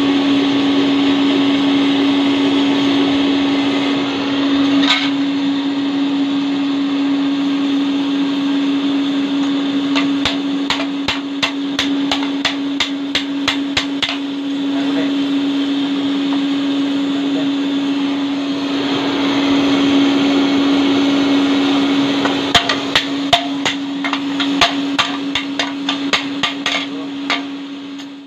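Steady hum and hiss of a forge's electric blower, with two runs of quick hammer blows on a red-hot hoe blade, the first about ten seconds in and the second near the end. The sound fades out at the close.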